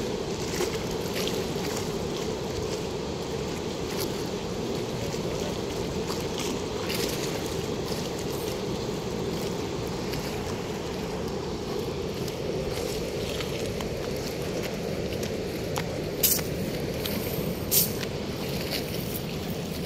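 Steady rush of water pouring through a weir's sluice gate, with two sharp clicks near the end.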